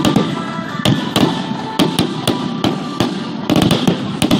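Fireworks display: shells going up and bursting overhead in an irregular string of sharp bangs and pops over a continuous rumble, with a dense cluster of bangs near the end as a large burst opens.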